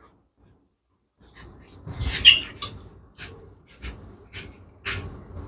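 Short metallic clicks, scrapes and rattles of a hand fitting serrated flange nuts onto the studs of a motorcycle transmission housing, starting after about a second of quiet and loudest about two seconds in.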